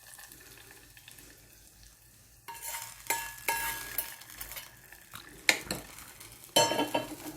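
A metal spoon scraping and clinking against a small metal pan, tipping hot mustard-seed and curry-leaf tempering into curd rice and starting to mix it in. The clinks begin about two and a half seconds in, with short metallic rings between them.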